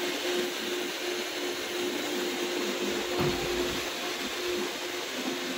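Vacuum cleaner running steadily: a constant hum over rushing-air hiss, with a brief low bump about three seconds in.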